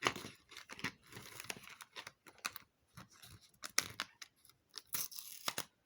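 Advent calendar door being torn open and the small jewellery packet inside unwrapped: a quick run of light clicks, with tearing and crinkling of packaging in between.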